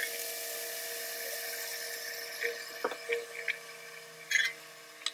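Small brewing pump switched on, running with a steady hum while hot wort rushes through the tubing and chiller and pours back into the kettle. A few light clicks and knocks in the middle as the metal kettle lid is handled.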